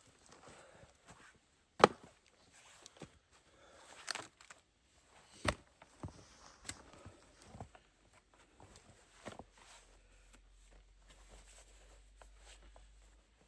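Wood being chopped: four sharp blows over the first several seconds, unevenly spaced, followed by a few lighter knocks.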